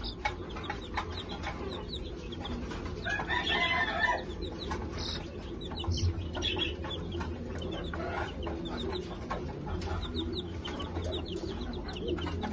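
Baby chicks peeping continually in short, high, falling notes, with chicken clucking and a louder call about three to four seconds in, over a steady low hum.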